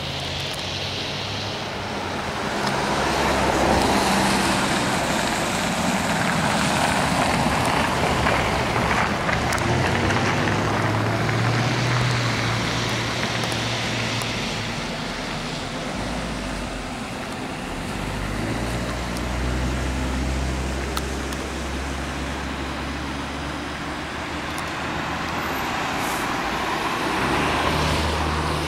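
Road traffic: cars passing on the street, a steady noise with low rumbles that swell and fade as vehicles go by.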